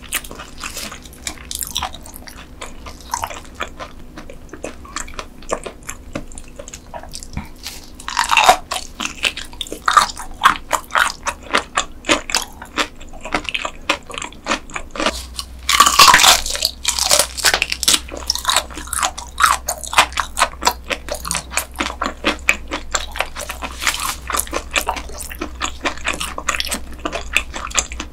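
Close-miked chewing of raw dotted gizzard shad sashimi eaten bones and all: a dense run of rapid, crisp crunches as the small bones break, with louder bites about eight and sixteen seconds in.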